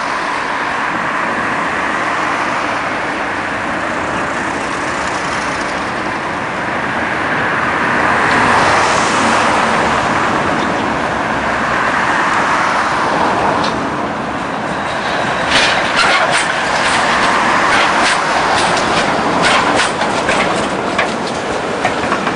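Articulated tram approaching along its track with a steady rumble that builds, then, from about two-thirds of the way in, rapid clicking and clattering of its wheels on the rails as it passes close by.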